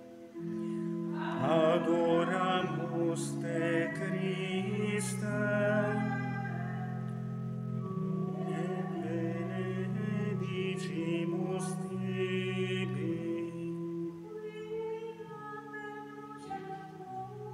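Latin liturgical chant sung over sustained organ chords that change in blocks. The voices fade out about 13 seconds in, leaving the organ holding its chords more quietly.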